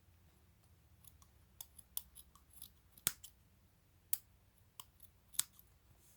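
Scissors snipping through cloth, a series of short, irregular snips as the loose edges are trimmed off.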